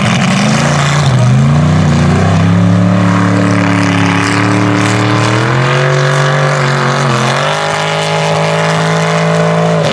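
Mega truck engine running hard at high revs, its pitch dipping and climbing as the throttle is worked. It climbs steadily, drops briefly about seven seconds in, then climbs again before falling away near the end.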